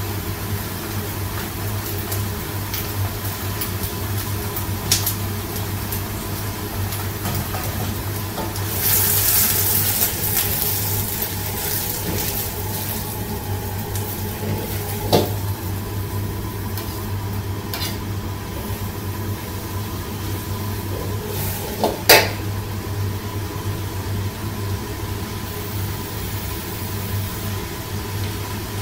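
Vegetables and chili powder being stir-fried in a steel wok with a ladle for a jjamppong base: a burst of sizzling about nine seconds in and sharp clanks of the ladle against the wok, the loudest a little past two-thirds of the way through, over a steady low hum of the kitchen burner.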